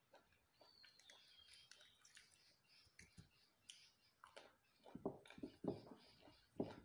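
Faint, wet chewing and mouth smacking as a person eats soft jackfruit bulbs, picking up about four seconds in.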